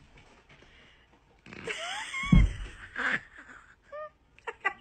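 A cat's short high meows, with one heavy thump a little before halfway.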